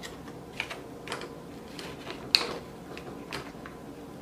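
Scattered light plastic clicks and taps as the hot water boiler's pump housing and tube fittings are handled and pressed into place, with one sharper click a little past two seconds in.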